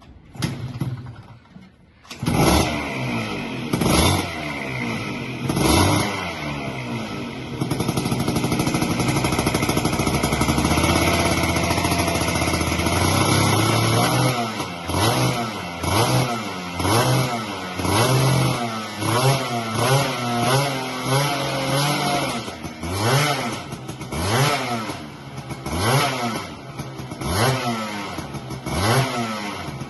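Gilera Runner 180 scooter's single-cylinder two-stroke engine, breathing through a handmade CROMOS expansion-chamber exhaust, being started and revved. After a short first burst it catches about two seconds in and takes a few sharp throttle blips. It holds a steady high run for several seconds, then is blipped repeatedly, the pitch rising and falling about once a second.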